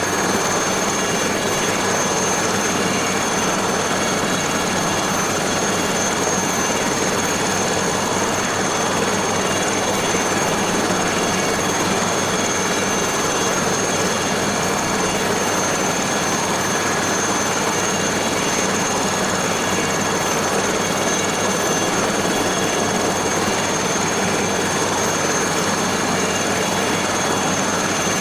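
Aérospatiale SA315B Lama helicopter's Turbomeca Artouste turboshaft and rotor running steadily, with a high, even turbine whine over the engine and rotor noise.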